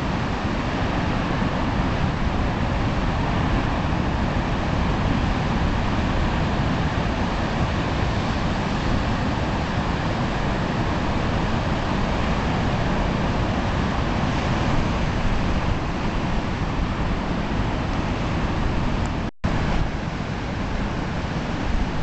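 Pacific surf breaking on a rocky beach, a steady roar of waves with no break except a brief dropout about nineteen seconds in.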